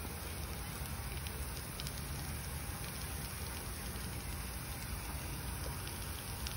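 Steady hiss of water spraying from a splash pad's overhead arch nozzle and pattering onto the ground, with a faint low rumble underneath.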